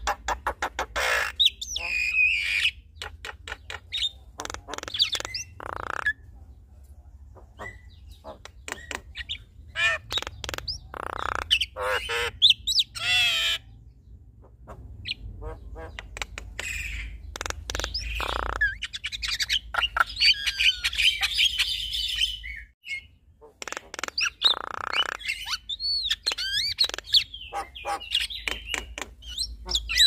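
Two Javan mynas, male and female, calling back and forth in a duet: fast runs of harsh squawks, clicks and chatter mixed with whistled glides, broken by short pauses.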